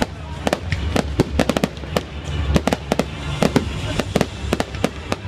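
Aerial fireworks bursting in a rapid, irregular series of sharp bangs and crackles, several a second.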